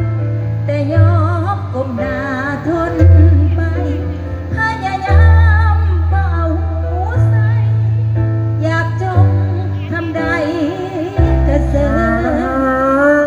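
A woman singing a melody with a wavering pitch into a microphone through a PA, backed by a live band whose deep bass notes are held and change every second or two.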